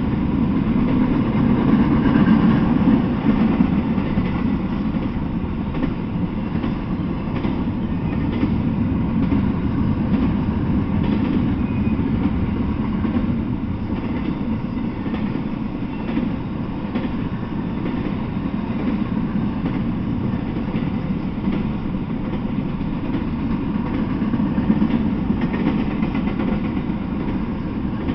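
Intermodal freight train of flatcars carrying semi-trailers rolling past at steady speed: a continuous low rumble of steel wheels on the rails.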